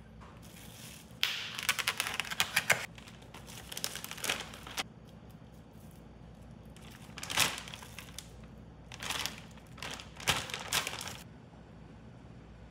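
Crinkly packaging being handled in several short bursts of crinkling and rustling, with quiet gaps between them.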